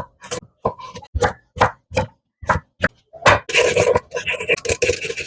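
Knife chopping vegetables on a cutting board: separate sharp chops about two a second. About three seconds in, the chops give way to a rougher, continuous scraping.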